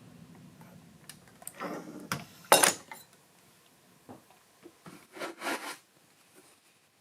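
Handling noises: scattered clicks and knocks with rustling. The loudest is a sharp rustling clatter about two and a half seconds in, with another cluster of rustles at about five seconds. A low steady hum fades away in the first second.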